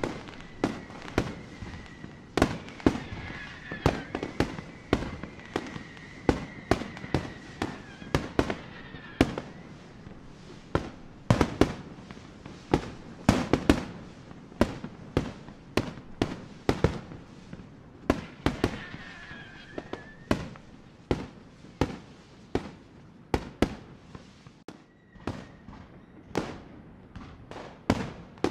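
Fireworks display: a rapid, irregular run of sharp bangs from shells bursting, often one or two a second, each with a short echo. A thin high whistle holds over the bangs for several seconds near the start and returns briefly past the middle.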